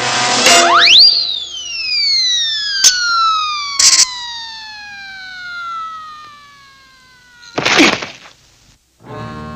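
Cartoon falling-whistle sound effect: a quick rising whistle about half a second in, then a long descending whistle as the character drops from the cliff. There are two sharp clicks partway through, and a loud crash near the end as he lands far below.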